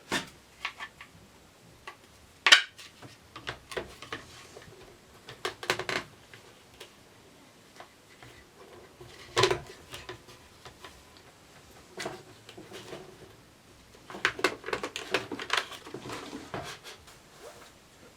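Irregular clicks, taps and knocks of hard objects being handled and set down, some coming in quick clusters, with no motor running.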